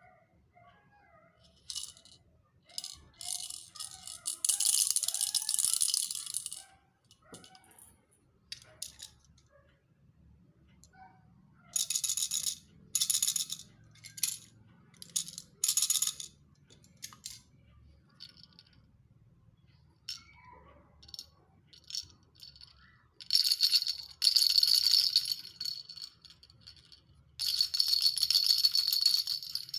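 Baby rattles being shaken in separate bursts: a long shake of a few seconds near the start, four short shakes in the middle, and two longer shakes near the end. The last two shakes carry a steady high ring over the rattle.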